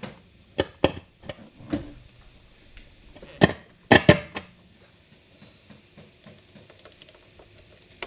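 Sharp knocks and clicks from handling guitar gear while switching over to the Yamaha JX35 amp, the loudest two about three and a half and four seconds in. A faint steady hum follows.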